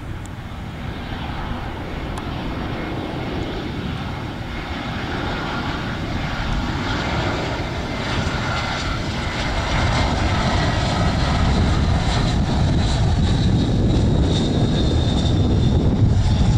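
Jet engines of a twin-engine airliner on final approach, a steady rushing noise with a high whine above it, growing louder over the first ten seconds as the plane comes in low overhead and then holding loud.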